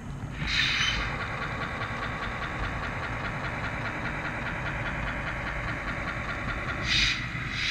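HO-scale model diesel locomotive running toward the camera, giving a steady mechanical engine sound that starts about half a second in and surges louder twice near the end.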